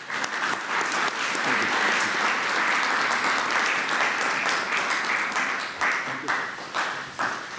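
Audience applauding, a dense steady clapping that thins to scattered individual claps near the end.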